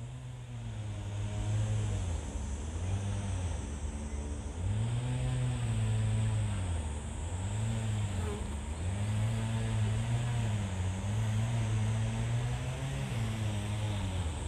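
A motor engine running continuously, its pitch repeatedly rising and falling every second or two.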